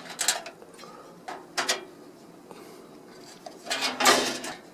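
Metal computer-case parts being handled and fitted: a few sharp clicks and knocks in the first two seconds, then a longer, denser clatter about four seconds in.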